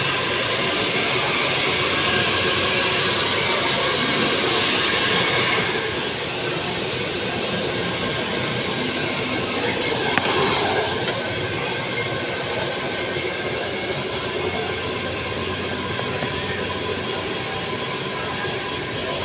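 Handheld hair dryer blowing steadily while hair is brushed through, dropping a little in level about six seconds in, with a brief louder whoosh about ten seconds in.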